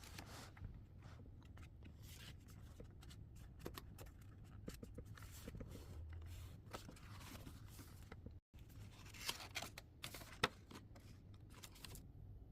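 Faint rustling and scraping of a hardback book and its paper packaging being handled, with a few light taps about nine and ten seconds in.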